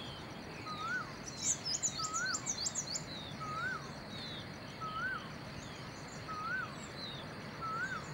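Birds calling over a steady background hiss. One bird repeats a short whistle that rises and falls, about once every 1.3 seconds, and a quick run of high chirps comes between about one and a half and three seconds in.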